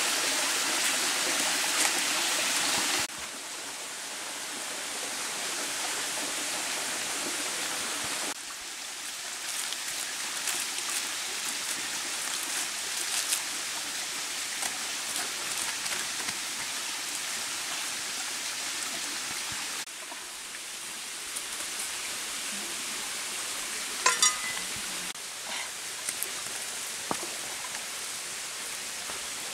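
Steady rush of running water trickling down a rock face into a forest stream, loudest in the first few seconds, then a quieter even hiss. A few sharp clicks come near the end.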